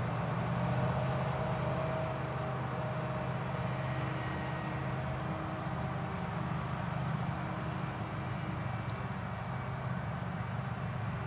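Krone Big X 770 forage harvester running steadily while chopping maize, mixed with the tractor hauling the silage trailer alongside: a steady, even low drone of machinery.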